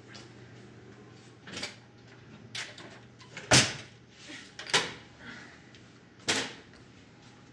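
Kitchen cupboard door and things on a high shelf knocking and clunking as someone searches for a stand mixer: about five separate knocks, the loudest about three and a half seconds in.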